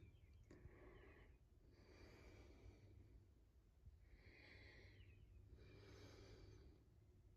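Near silence, with a person's soft breathing close to the microphone, a faint breath about every one to two seconds.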